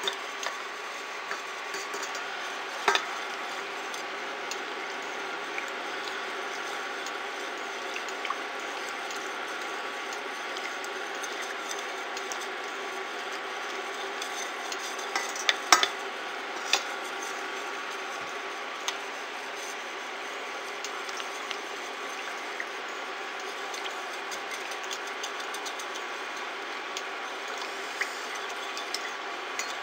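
Plastic spoon stirring hot borax solution in a stainless steel pot: a steady swishing, with a few sharp clicks of the spoon against the pot, a cluster of them about halfway through. The stirring is dissolving the borax into a clear, saturated solution.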